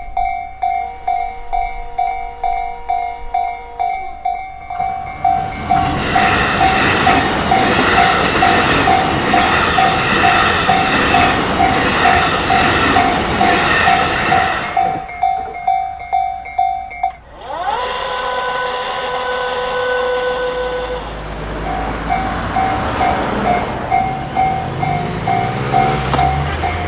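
Japanese level-crossing warning bell ringing in quick repeated dings, about two a second. A train passes with loud rumble and rail noise, while the bell keeps ringing through it. The bell stops briefly, then starts ringing again as another train approaches near the end.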